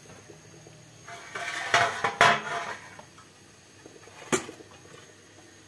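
Kitchen utensils clattering on dishes: a stainless steel ladle and wooden spoon handled and set down on an enamel plate. There is a busy clatter of clinks for about two seconds, then one sharp clink near the end.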